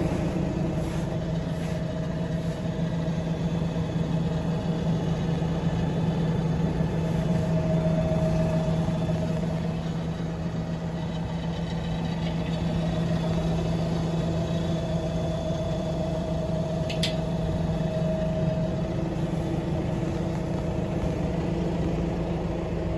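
Fendt 512 tractor engine idling with a steady, even hum. One short click sounds about two-thirds of the way through.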